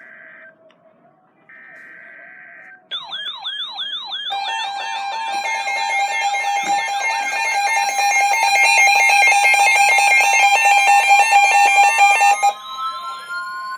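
Emergency Alert System broadcast alert sound. Two short bursts of buzzing data-header noise come first, then warbling electronic tones about 3 seconds in. These build into a loud, rapid multi-tone beeping alarm that cuts off near the end, leaving a rising sweep tone.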